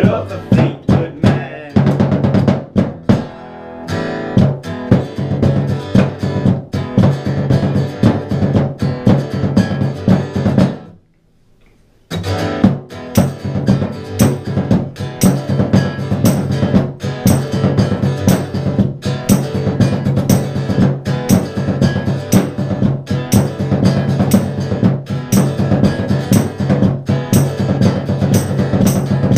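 Instrumental passage of acoustic guitar strumming over drums played with sticks, in a steady driving rhythm. The music stops dead for about a second near the middle, then comes straight back in.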